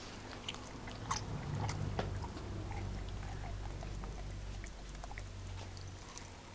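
Bull terrier biting and chewing a lemon close to the microphone: scattered wet clicks and crunches over a low steady rumble.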